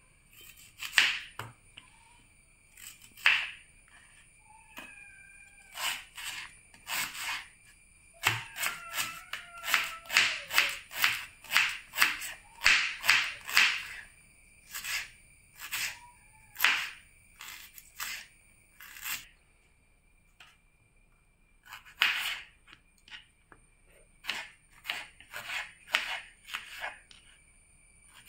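Kitchen knife chopping an onion on a plastic cutting board: irregular sharp taps of the blade hitting the board, coming in quick runs separated by pauses.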